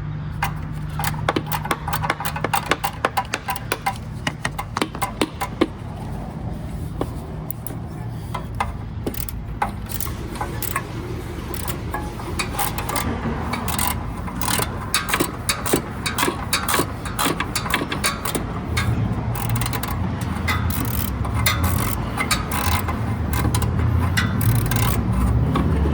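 Hand ratchet clicking in quick runs as it works a 12 mm alternator bolt, over a steady low hum.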